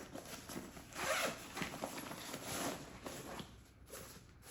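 Zipper on a fabric bag being pulled, in a few strokes: the strongest about a second in and again near the middle, dying away before the end.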